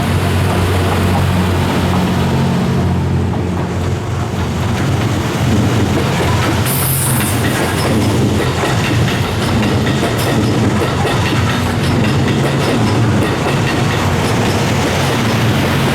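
The Series 87 Twilight Express Mizukaze, a diesel-electric hybrid train, running past close by: a steady low engine hum over the noise of wheels on the rails. The sound dips briefly about three seconds in, then carries on.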